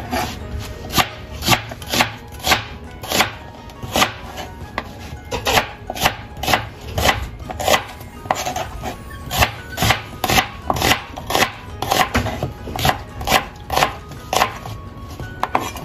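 Kitchen knife slicing a peeled onion on a plastic cutting board. Each cut ends in a sharp tap of the blade on the board, in a steady rhythm of about two cuts a second.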